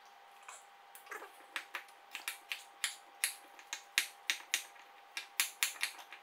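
Chef's knife cutting potato into pieces on a wooden cutting board: a run of irregular sharp knocks of the blade against the board, several a second, starting about half a second in.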